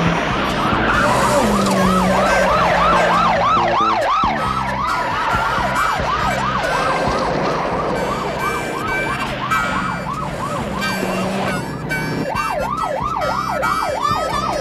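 Police car siren on a fast yelp, its pitch sweeping up and down about three times a second. The yelp weakens briefly about eleven seconds in, then comes back strong near the end.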